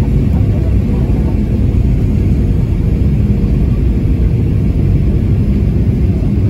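Steady low rumble of a jet airliner's engines and rushing air, heard from inside the passenger cabin on approach to landing.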